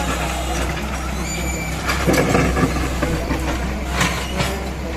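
Diesel engine of heavy earthmoving machinery running steadily at a roadworks site, with a louder surge about two seconds in.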